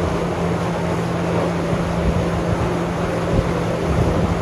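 Chairlift drive machinery running: a steady mechanical hum with a constant low tone under a dense rushing noise.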